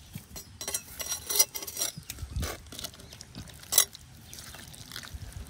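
Clinks and scrapes of something being handled against a clay cooking pot of chicken, a handful of sharp knocks, the loudest about one and a half and nearly four seconds in.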